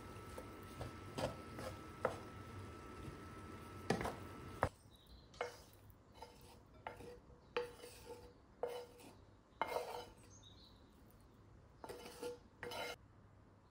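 Wooden spoon stirring fried rice in a frying pan, with small taps on the pan over a faint sizzle. About five seconds in the sizzle stops, and the spoon scrapes and knocks the rice out of the tilted pan into a ceramic bowl in a string of short scrapes, some with a brief ring.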